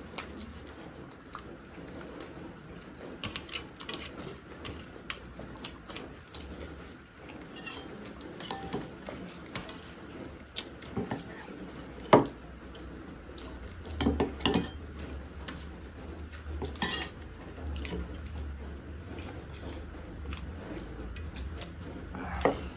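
Tableware clatter of a meal eaten by hand: fingers scraping and mixing rice on stainless steel plates, with scattered clinks and clicks. The loudest is one sharp clink about twelve seconds in, as a steel spoon scoops curry from a glass bowl, followed by a cluster of clinks a couple of seconds later.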